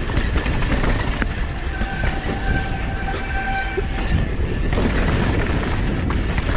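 Downhill mountain bike rolling fast over rock and dirt: continuous tyre rumble with the rattle and clatter of the chain, frame and suspension over rough ground, and wind buffeting the camera microphone.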